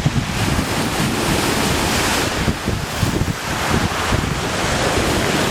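Sea waves surging and breaking, with strong wind buffeting the microphone.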